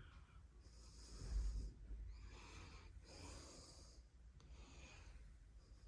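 Faint breathing close to the microphone: four soft, airy breaths over a low rumble.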